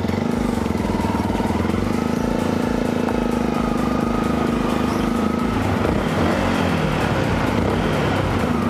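Motorcycle engine running at low revs as the bike rolls slowly, a steady putter, briefly rising in pitch about six seconds in.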